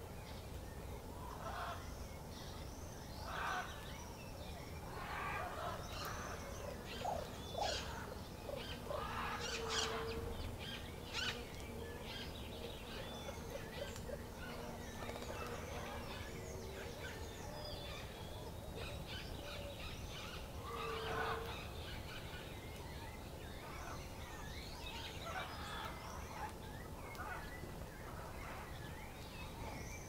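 Backyard birds calling: a scatter of short chirps and calls from several birds, busiest in the first third and again past the middle, with a short low hooting note that comes back about every ten seconds.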